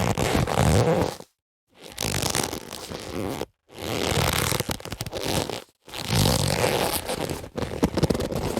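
Leather boxing gloves rubbing and creaking against each other, in five bursts of about one and a half to two seconds with brief silences between.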